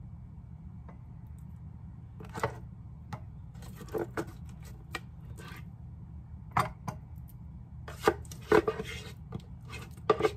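Spatula scraping and tapping against a bread maker's pan, scooping sticky apple jam out into a glass jar: irregular short scrapes and knocks that begin about two seconds in, over a steady low hum.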